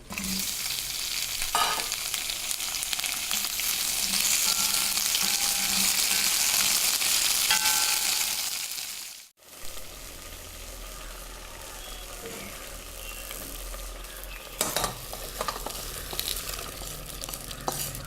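Pieces of drumstick and okra sizzling loudly as they are stirred in a hot pan. About halfway through, the sizzle cuts off abruptly. A quieter steady hum follows, with a few sharp clinks of a utensil against a pot.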